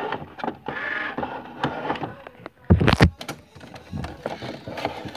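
Plastic toys being handled on a toy workbench: scattered knocks and clicks, with one loud thump just under three seconds in.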